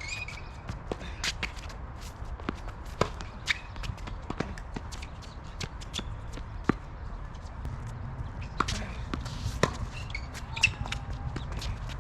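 Tennis ball being struck and bouncing on the court, sharp irregular pops a second or two apart, with footsteps and a brief shoe squeak or two, over a steady low rumble.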